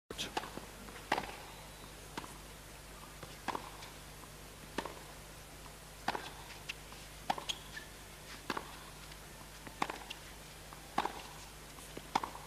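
Tennis ball struck back and forth by racquets in a baseline rally, with sharp pops about every second and a quarter and lighter bounces on the court between them. A faint steady low hum runs underneath.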